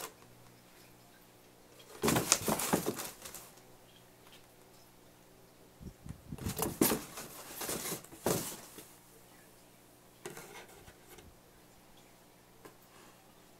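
Rustling and scraping of a cardboard box as a cat shifts around inside it, in two louder bouts a few seconds apart and a fainter one later.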